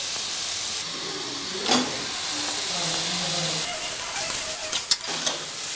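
Chicken pieces sizzling as they fry in hot masala in an aluminium pressure cooker, a steady hiss. Two short metal clinks come from the slotted spoon, one about two seconds in and one near the end.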